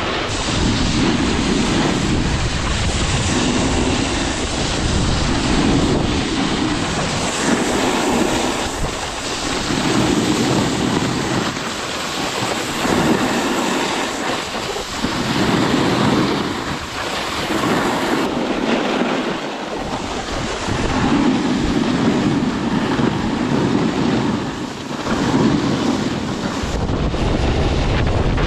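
Skis scraping over hard, icy snow through a series of turns, with a swell of scraping about every two seconds, and wind rushing over the microphone.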